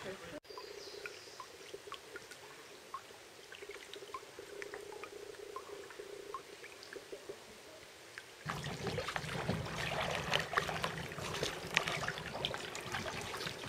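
Water dripping and trickling off kayak paddles in scattered small drops. About eight seconds in this gives way to louder, continuous splashing of paddle strokes and water lapping against a plastic kayak hull.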